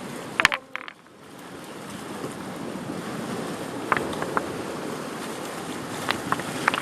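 Steady wash of sea surf with a few sharp clicks and scrapes of shellfish being pried off rocks: a cluster about half a second in, more around four seconds and several near the end.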